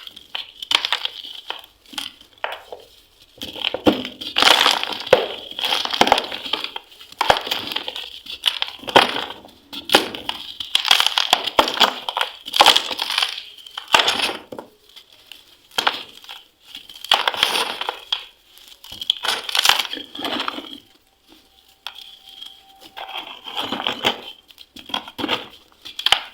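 Dried cement pieces being crumbled and crushed, a run of irregular gritty crunches with short pauses between them.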